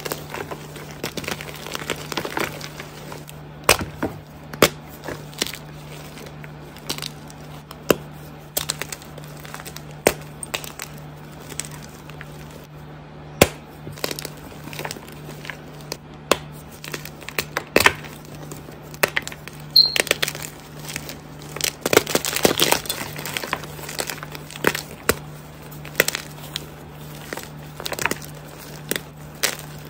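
Soft glitter gym chalk blocks being crushed and crumbled by hand: irregular sharp cracks and crunches with a powdery crumbling between them, thickest about two-thirds of the way through.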